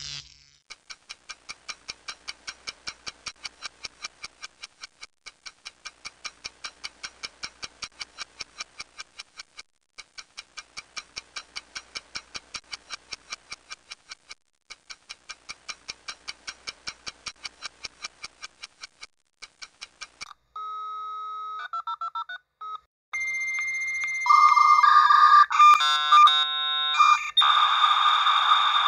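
Electronic alarm clock beeping rapidly, about six beeps a second, in runs that swell and fade with short breaks. It stops after about twenty seconds, and a jumble of steady electronic tones and bleeps follows.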